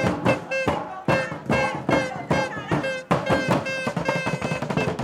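Music with a steady drum beat of about two hits a second and held, horn-like notes.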